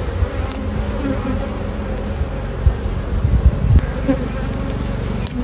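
Honeybees buzzing in a steady hum around an opened hive, with single bees droning past now and then. A few dull low bumps come about three to four seconds in.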